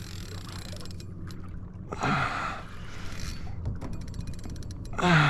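Two heavy gasping breaths from a man straining against a big hooked fish, about two seconds in and again near the end, the second with a short voiced grunt. Faint rapid ticking lies in between.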